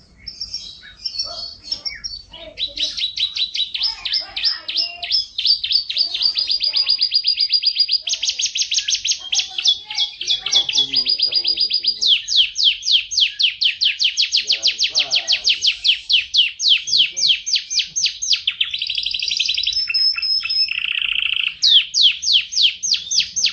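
Domestic canary in full song: a long, unbroken run of fast trills and rolls, each phrase a rapid repeat of one note before switching to the next, with a lower buzzy roll about three seconds before the end.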